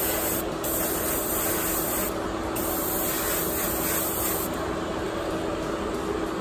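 Paasche Talon double-action airbrush spraying paint with a steady hiss, cut off briefly twice and then stopping about four and a half seconds in. A steady low hum runs underneath.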